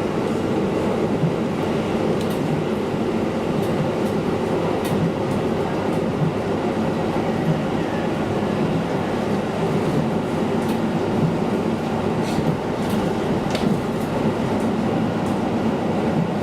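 KiHa diesel railcar under way: steady engine drone and wheel-on-rail rumble, with a few sharp clicks late on.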